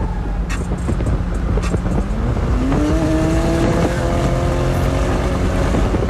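McLaren sports car driven at high speed, engine running under road and wind noise. About two seconds in, the engine note climbs as it revs up, then holds steady.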